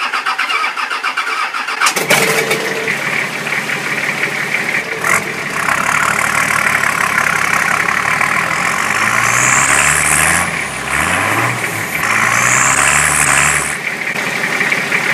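Nissan TD42 inline-six diesel cranking for about two seconds, catching and idling. It is then revved a few times, with a high whistle rising with each rev.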